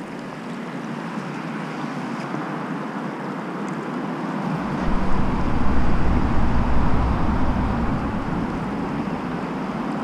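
Fast-flowing river water rushing steadily, heard through a GoPro microphone, with wind buffeting the microphone and gusting louder from about four and a half to eight seconds in.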